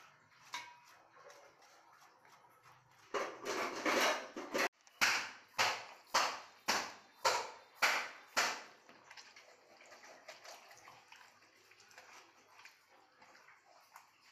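Goat tripe being scrubbed by hand on a plastic cutting board: a wet rushing scrub, then about seven rhythmic wet strokes at about two a second, then quieter squishing as it is handled.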